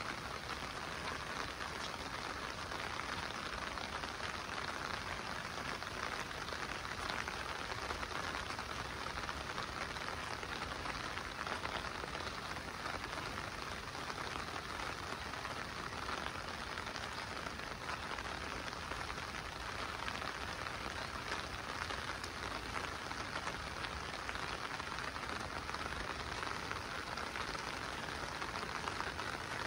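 Steady monsoon rain falling, an even hiss that holds without letup.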